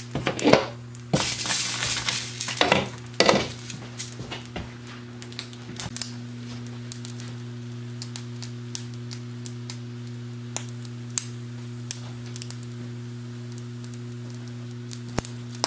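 A glass pot lid clinks and knocks against a metal cooking pot, with a short scrape, as it is lifted off and set aside over the first few seconds. After that only a steady low hum remains, with a few faint clicks.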